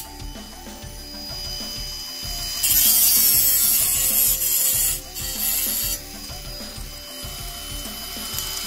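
Cordless angle grinder cutting through a metal bicycle fender. Loud cutting starts about two and a half seconds in and lasts about two seconds, then a shorter burst just after five seconds, with quieter running between.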